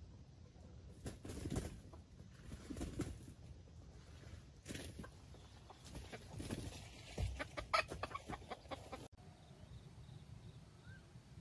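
Red junglefowl (wild chicken) clucking in short, low bursts every second or two, quieter after about nine seconds.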